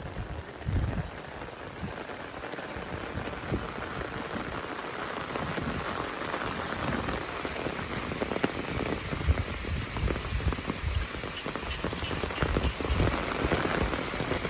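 Heavy rain pouring steadily, full of close drop hits, with a few low rumbles swelling up now and then.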